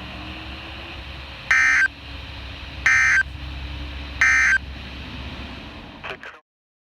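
Emergency Alert System end-of-message data code from NOAA Weather Radio: three identical short, harsh digital bursts, about a second and a half apart, over faint radio hiss. The end-of-message code marks the close of the warning. The audio cuts out near the end.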